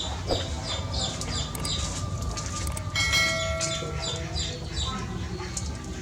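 Birds chirping over and over in short high falling notes, with a brief metallic ring about three seconds in that fades within a second.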